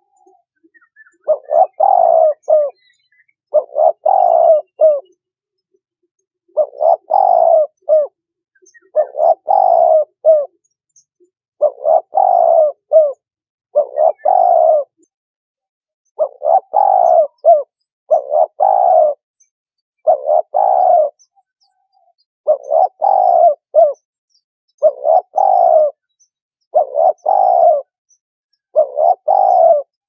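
Turtle dove cooing: a regular series of short, multi-note coo phrases, about one every two seconds, with clean pauses between them.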